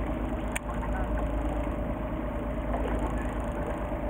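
Fishing boat's engine running steadily with a deep rumble and a steady hum. A single sharp click comes about half a second in.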